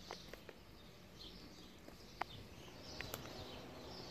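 Faint street ambience with birds chirping on and off, and a few light clicks.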